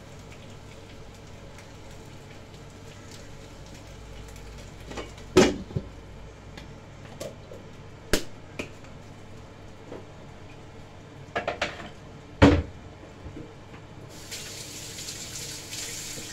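Handling sounds from a can of chicken bouillon powder and its spoon: a few sharp clinks and knocks, including a quick run of three, over a steady background hum. A hiss of about two seconds comes near the end.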